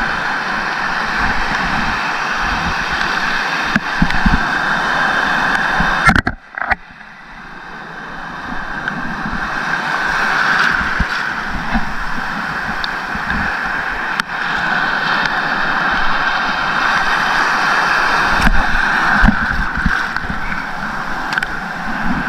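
Shallow sea water washing and sloshing right around a camera held just at the surface, a steady rushing noise with scattered low thumps. About six seconds in the sound suddenly drops away and goes muffled for a moment, then builds back up.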